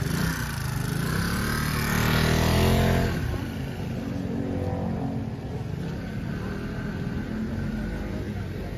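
Busy outdoor street ambience: a motor vehicle engine running over a background of crowd noise, swelling louder around two to three seconds in, then settling to a steady level.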